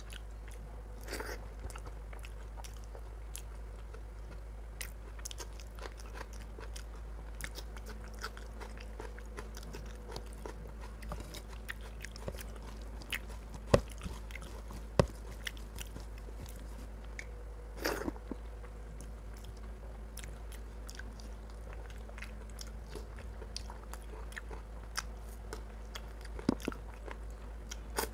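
Close-up sounds of eating rice and chicken curry by hand: fingers mixing and squishing rice on a steel plate, chewing and wet mouth clicks, with a few sharp louder clicks along the way. A steady low hum runs underneath.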